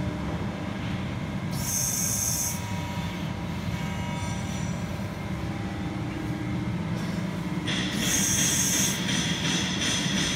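A CNC hydraulic press brake's hydraulic power unit running with a steady hum. It is broken by two hissing bursts of about a second each, one about two seconds in and one near the end, after which a brighter whine joins the hum.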